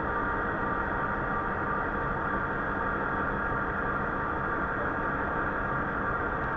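HO-scale model diesel locomotive running slowly along the track, giving a steady engine-like drone.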